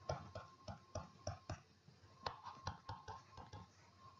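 A stylus tapping and scratching on a tablet screen while handwriting, making a run of faint, irregular clicks, about two or three a second, over a faint steady tone.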